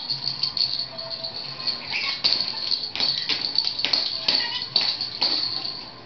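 A pet lory playing with a small rattle ball toy on a tiled floor: irregular rattling and light knocks, several a second.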